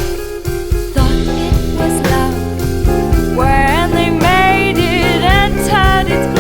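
Background music: a guitar-backed song with drums, a singing voice coming in about three seconds in.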